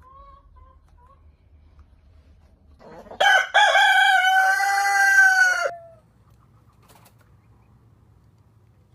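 A chicken crowing. It starts about three seconds in with a couple of short notes, then holds one long call of about two seconds that falls slightly at the end. There are faint short notes just before it.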